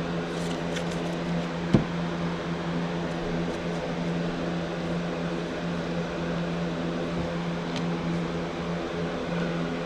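A steady mechanical hum at an even pitch, with one sharp click about two seconds in.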